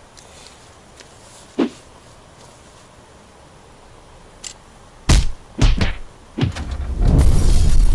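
A faint thump, then several loud dull thumps in quick succession, followed by a loud steady rushing noise.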